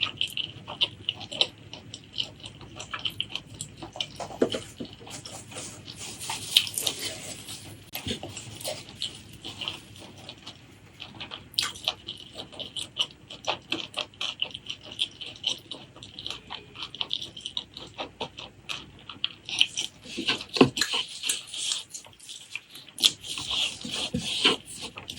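Close-miked eating sounds of a saucy meal of pork leg curry with rice: a steady run of wet chewing, lip smacks and small slurps, busier in stretches.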